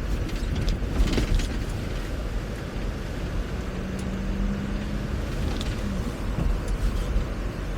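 Force Gurkha 4x4 driving: steady engine and road rumble, with a few knocks about a second in and a steady hum for a couple of seconds in the middle.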